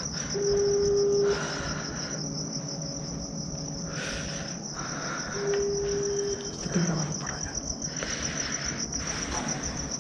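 A phone call ringing out on a phone's speaker: the ringback tone, a steady low beep about a second long, sounds twice five seconds apart while the call goes unanswered. Crickets chirp steadily throughout.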